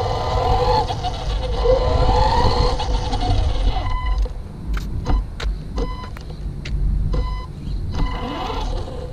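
RC car's electric motor whining, its pitch rising and falling as it drives, over a low rumble. About four seconds in the whine stops, and a series of short, sharp clicks and brief beeps follows, irregularly spaced.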